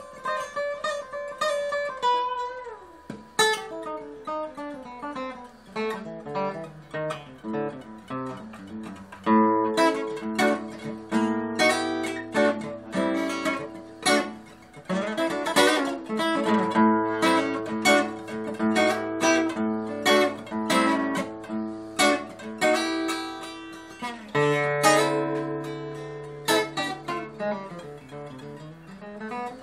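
Steel-string acoustic guitar played fingerstyle, an improvised run of picked notes and chords. It starts sparse and quieter, then grows fuller and louder about nine seconds in.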